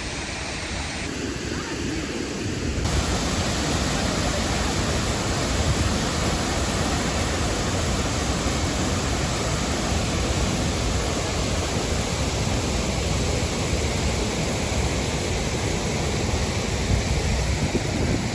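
Waterfall: a steady rush of falling water, growing louder about three seconds in.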